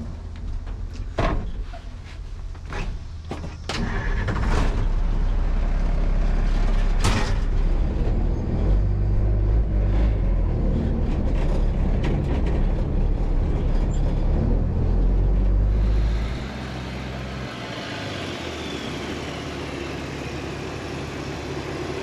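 An old flatbed work truck's engine running, heard from inside the cab. There are a few sharp clicks and knocks in the first seconds, the engine gets much louder about four seconds in as the truck pulls away, and it drops to a quieter, steadier sound about sixteen seconds in.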